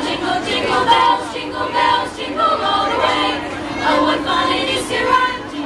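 School choir of girls' voices singing a song, with held notes and changing pitches.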